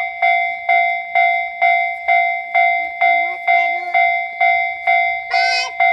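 Japanese railway level-crossing warning bell ringing, a steady "kan-kan" of about two strikes a second: the crossing is active for an approaching train. Near the end a held pitched tone with many overtones comes in over it.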